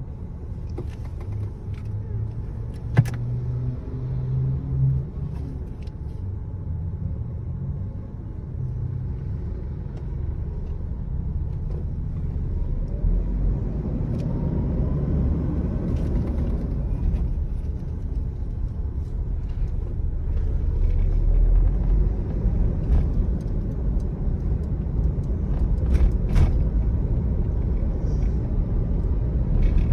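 Inside the cabin of a moving Toyota Innova: steady low engine and road rumble that grows gradually louder, with a few sharp clicks, the strongest about three seconds in.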